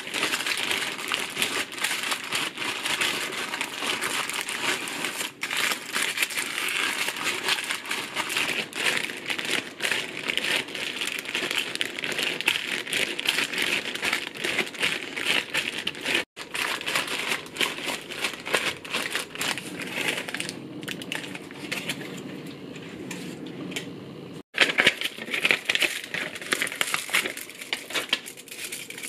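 A plastic bag crinkling and rustling continuously while crunchy food inside it is squeezed and crushed by hand. The sound drops out briefly twice, about halfway and near the end, and comes back louder after the second break.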